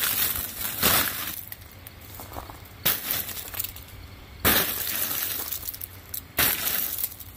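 Glaze ice cracking and tinkling as it breaks off the frozen fabric of an inflatable yard decoration bent by hand: four sharp cracks, a second or two apart, over a light crackle.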